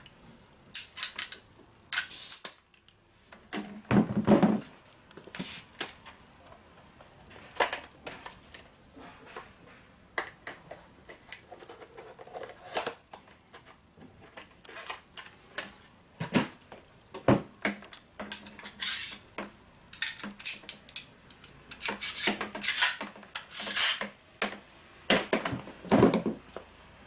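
Irregular clicks, knocks and rattles of a pneumatic tacker being handled and loaded, with a small cardboard box of fasteners being opened; the louder clacks come near the start and in a cluster near the end.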